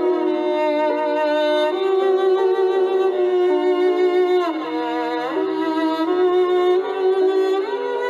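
Music: a violin playing a melody with sustained notes, sliding down in pitch and back up about halfway through.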